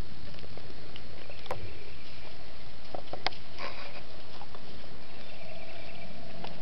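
Puppies and a person moving through dry leaf litter and short grass: light rustling over a steady hiss, with a few sharp crackles and clicks around the middle.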